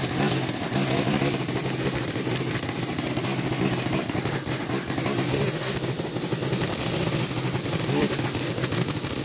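Zero-turn riding mower engine running steadily.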